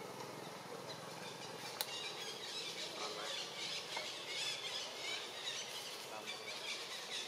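Baby macaque squealing in a run of short, wavering high-pitched cries, strongest in the second half. One sharp click just under two seconds in.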